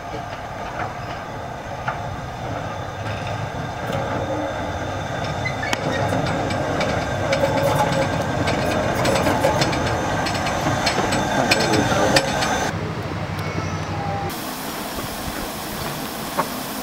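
LMS Stanier Black Five steam locomotive 45379 running towards and past, its wheels clicking on the rail joints over a low rumble that grows louder as it draws level. About fourteen seconds in, this gives way to a steady hiss of steam from the locomotive standing at a platform.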